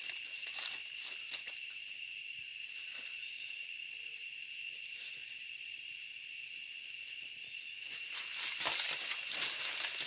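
Steady, high-pitched drone of insects in the surrounding vegetation. From about eight seconds in, a louder stretch of rustling and crackling rises over it.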